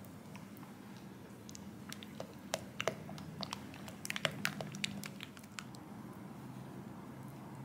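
Silicone spatula stirring thick chocolate ganache in a glass bowl: soft squelching with a scatter of small clicks and scrapes against the glass, busiest in the middle. A faint low hum runs underneath.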